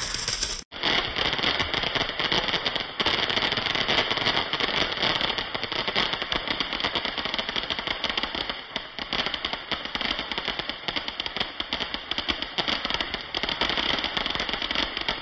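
Ground fountain firework spraying sparks: a continuous crackling hiss of rapid, dense pops. It cuts out for an instant a little under a second in, then the crackling resumes.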